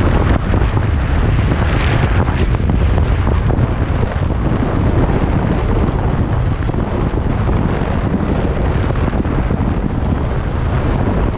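Steady wind rush buffeting the microphone of a camera on a Harley-Davidson Street Glide Special riding at highway speed, with a low rumble from the motorcycle underneath.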